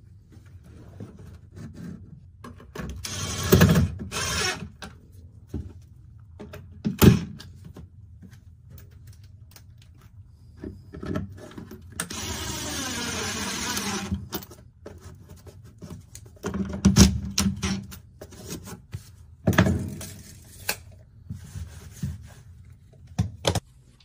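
Irregular knocks, clunks and rattles of tools and equipment being handled, with a rush of noise lasting about two seconds around the middle.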